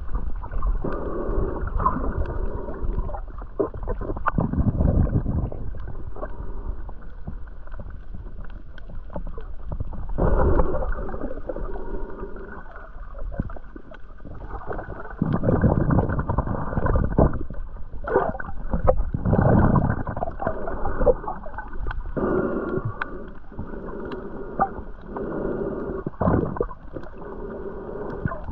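Muffled underwater sound from a camera held just below the surface while snorkelling: water gurgling and sloshing that swells and fades every few seconds, with scattered small clicks.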